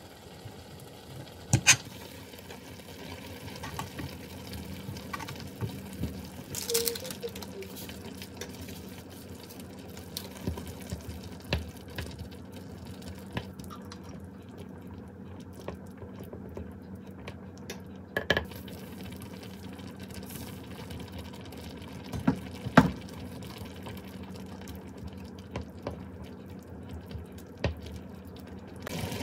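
Tteokbokki broth with ramen noodles simmering in a ceramic dish on an electric cooktop, with scattered sharp knocks and clicks of utensils and wooden chopsticks stirring. About two seconds in, a knife knocks on a cutting board while slicing rice cakes.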